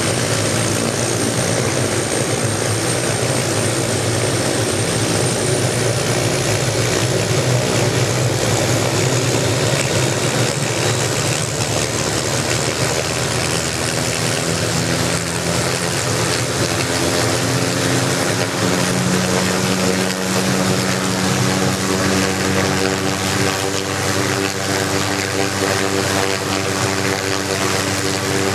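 Hughes 500 light helicopter running on the ground with its main rotor turning: the Allison turboshaft's thin high whine over a dense rotor and engine drone. The whine steps up slightly about six seconds in, and the low drone grows clearer and higher in pitch past the middle.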